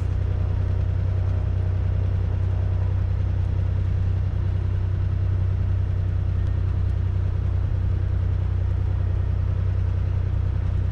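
Freshly overhauled six-cylinder piston engine and propeller of a Cessna 210 Centurion running steadily at taxi power, heard inside the cockpit as an even, low drone.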